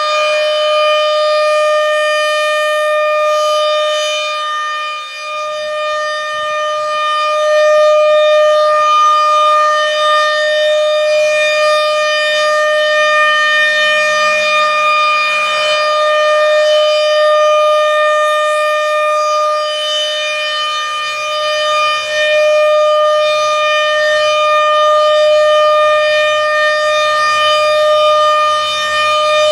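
American Signal RM130 rotating outdoor warning siren sounding during its weekly test. It holds one steady high pitch at full speed, its loudness swelling and dipping slightly.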